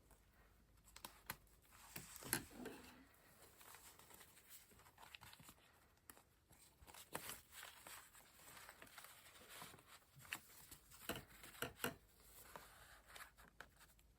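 Quiet paper handling for a junk journal: soft rustles of paper and card with scattered light taps and clicks as pieces are moved and pressed into place.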